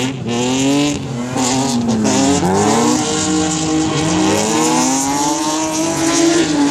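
Rally car engines running hard, their pitch climbing and dropping with revs and gear changes, more than one engine heard at once.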